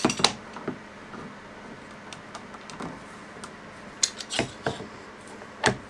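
Steel F-style bar clamps clacking and clinking as they are handled and set onto a glue-up: scattered sharp knocks, a quick cluster about four seconds in and a loud clack near the end.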